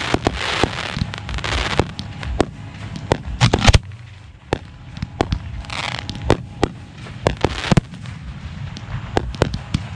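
Professional 1.3G fireworks being fired from mortar racks, heard close to the racks: a rapid, irregular string of sharp shell reports over a low rumble, with stretches of hiss between them.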